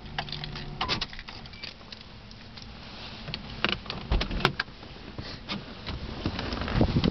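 Handling noise inside a car: scattered clicks, knocks and rustles, with one sharp click about four and a half seconds in. Wind noise on the microphone rises near the end.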